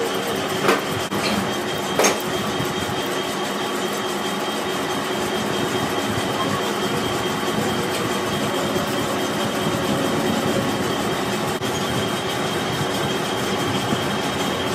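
Manual lathe running under load while its cutting tool turns a heavy metal spindle, with coolant spraying onto the work: a steady machining noise with a faint steady whine, and two sharp clicks in the first two seconds.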